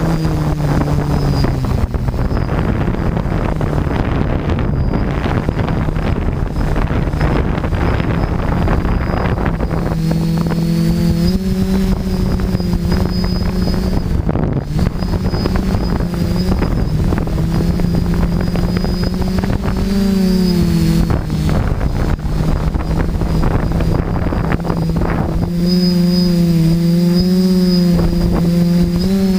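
Multirotor drone's electric motors and propellers humming, with a steady high whine above. The pitch glides down right at the start, then wavers up and down as the throttle changes. Wind rushes over the microphone, and for a few seconds at a time the hum sinks under it.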